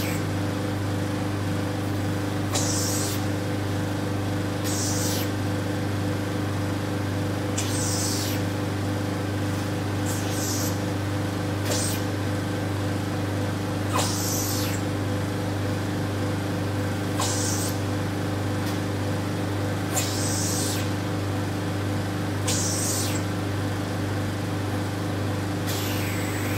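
Vacuum RF roller body-contouring machine running with a steady hum, with a short hiss of air every two to three seconds as the handle's vacuum suction pulses on the skin.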